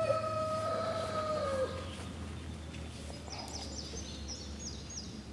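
A long animal call that glides up and then holds one pitch for about a second and a half before dropping away, followed about three seconds in by a run of short, high bird chirps.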